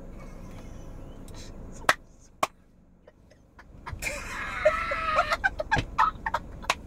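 Two sharp slaps about two seconds in, then a man's loud, high-pitched laugh of disbelief breaking out about four seconds in and going on in short sharp bursts.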